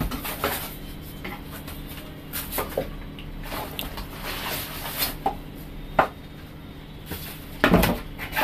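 Cardboard box and plastic packaging being handled: irregular rustling, scraping and light knocks as a packaged camera is lifted out of its box, with the loudest knocks near the end.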